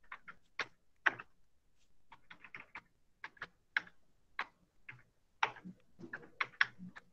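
Computer keyboard being typed on: irregular single key clicks and short quick runs of keystrokes with pauses between.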